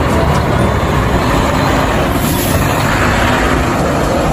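A car carrier truck driving past close by on a road, with steady engine and tyre noise amid traffic.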